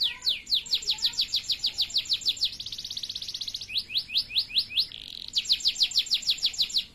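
Male canary singing: runs of rapid falling notes, about seven a second, broken by a faster, buzzier trill in the middle and a short one later on, then stopping abruptly near the end.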